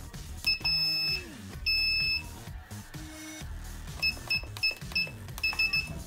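Keypad of a KKmoon RFID door access-control unit beeping as a code is keyed in: two longer beeps in the first two seconds, then short quick beeps, one per key press, in two runs of about four near the end.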